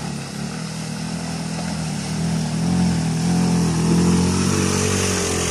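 Fin Komodo KD250X off-road buggy's 250 cc four-stroke engine running steadily under load as the buggy, laden with oil palm fruit bunches, drives through mud. It grows louder to about four seconds in, then eases slightly.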